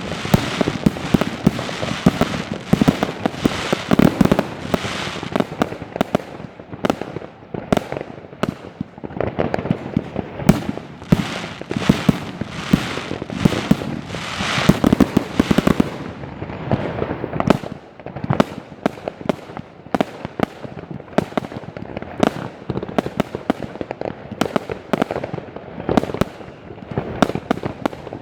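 Consumer firework cakes (Extreme Fireworks Flower Power and Woodstock multi-shot batteries, 18–45 mm shots) firing in rapid, overlapping succession: launch thumps and aerial bursts several times a second without a break, thinning slightly about halfway through.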